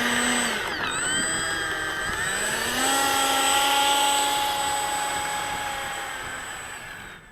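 Electric ducted fan of a Freewing F-86 Sabre 80mm EDF jet model whining under throttle while taxiing, with a thin high whistle above it. The fan dips in pitch about a second in, then spools up again and holds steady. It winds down over the last few seconds.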